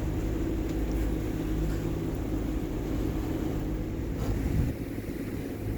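A boat's engine running steadily under way, a low hum with water and wind noise over it.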